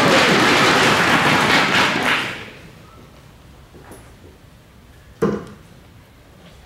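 Audience applause dies away over the first two and a half seconds. About five seconds in, a single steel-tip dart thuds sharply into the bristle dartboard.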